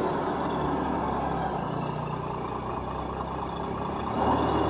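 Radio-controlled miniature bus giving off a steady, low engine-like hum, which swells louder about four seconds in.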